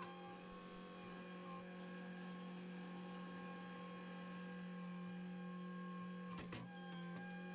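A machine running with a steady, even hum. A brief click comes about six and a half seconds in.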